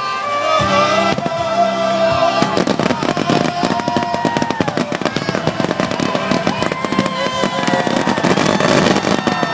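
Fireworks display: a dense, continuous run of crackling and popping bursts, with music playing along.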